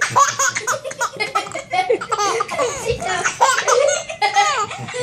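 Baby laughing hard in a rapid run of short, repeated belly laughs and giggles.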